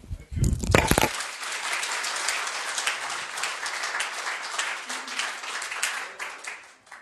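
Audience applauding, a dense patter of many hands clapping that stops sharply near the end. A few loud, low thumps come just as it starts, the loudest moment.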